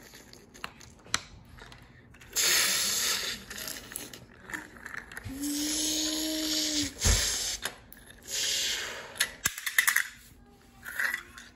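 Plastic toys being handled and moved on a stone countertop: clicks, knocks and two bursts of hissing, scraping noise. About halfway through, a child hums one steady note for nearly two seconds, which ends in a knock.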